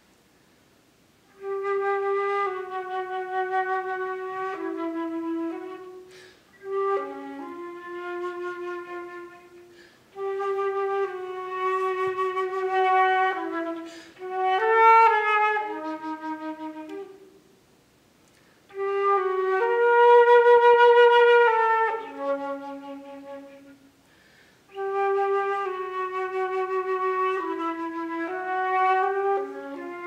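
Solo concert flute playing low notes in five phrases that each step downward, set apart by short pauses, beginning about a second and a half in; the phrases are variations on a South African bird call.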